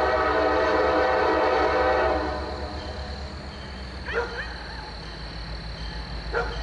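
Locomotive air horn sounding a steady chord that cuts off about two seconds in, followed by the low rumble of the approaching train. A few short calls stand out above the rumble about four seconds in and again near the end.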